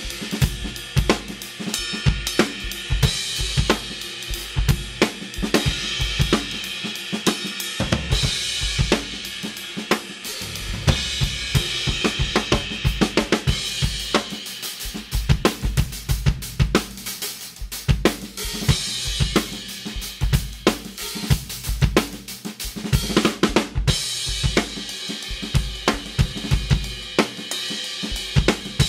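Drum kit played in a steady groove: bass drum, snare and hi-hat under Istanbul Mehmet Samatya cymbals, with cymbal crashes washing over the beat several times.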